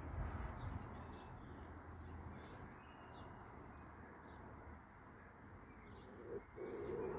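Faint bird calls over quiet background, with a low two-part call, a pigeon-like coo, about six seconds in.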